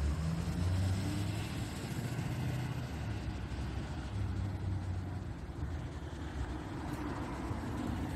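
Low, steady rumble of a motor vehicle's engine running nearby.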